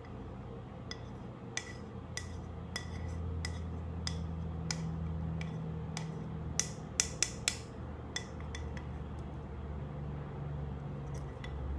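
A utensil clinking and tapping against a bowl: a couple of dozen irregular light clinks, each with a brief ring, a few louder ones together a little past the middle, over a low steady hum.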